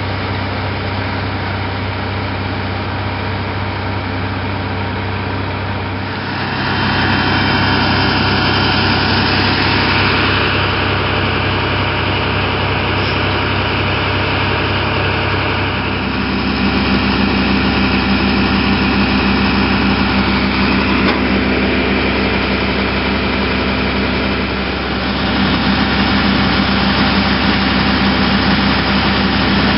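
Fire engine diesel engines running steadily, with a constant hiss over the hum. The engine note changes abruptly about six, sixteen and twenty-five seconds in.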